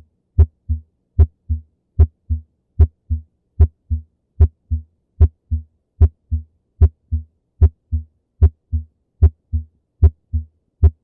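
Normal heart sounds: S1 and S2 in a steady lub-dub rhythm, two short low thumps per beat at about 75 beats a minute, with silence between the beats and no murmur.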